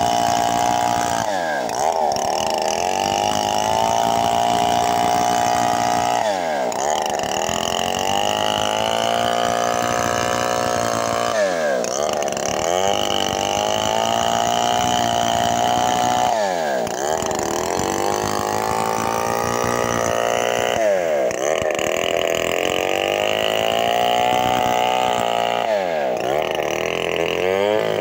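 Stihl MS 070, a large single-cylinder two-stroke chainsaw, running hard while cutting gmelina wood. Its pitch dips sharply and climbs back about every five seconds, six times over.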